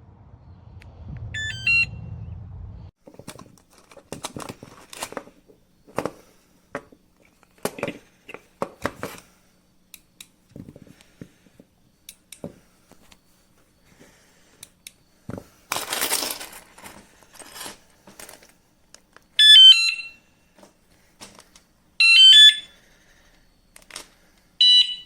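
Wireless bike alarm giving short, loud electronic chirp tunes that step up and down in pitch: one about two seconds in, then three more near the end, each about half a second long. In between come scattered clicks, knocks and a brief rustle of handling.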